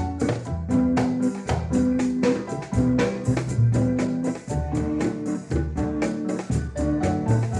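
Background music: an upbeat track with keyboard or organ chords over a steady beat.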